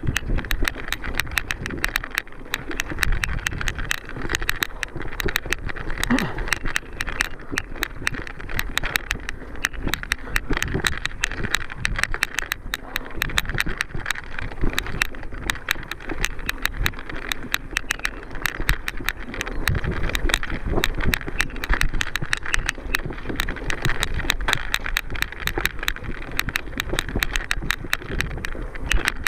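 Mountain bike ridden over rough trail: a dense, continuous rattle and clatter of small knocks, with a low rumble that swells now and then.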